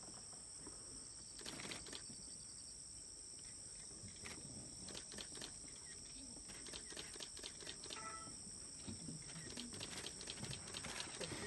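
Forest ambience: a steady high-pitched insect drone, with scattered clicks and rustles that grow busier from about five seconds in.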